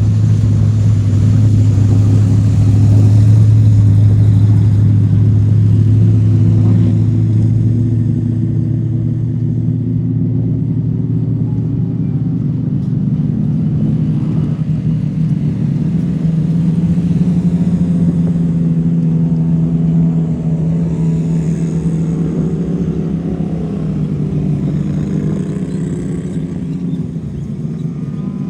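Off-road racing UTV engine noise: a loud, steady drone whose pitch wanders slowly up and down.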